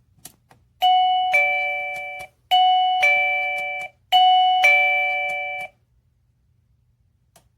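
Wireless caregiver pager receiver (Daytech) ringing its doorbell-style two-note chime three times in a row, each a higher note stepping down to a lower one and fading out over about a second and a half; a faint click comes just before the first chime.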